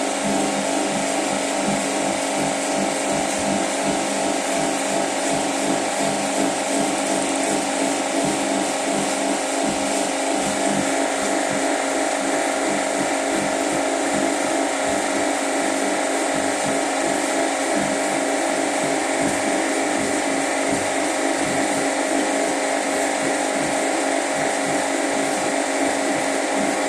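Washing machine spinning in its spin cycle: a steady, unbroken whir with a hum of several steady tones over a hissing rush. This is the noise the machine makes when spinning, which the owner puts down to the laundry bunching to one side of the drum and setting up vibrations.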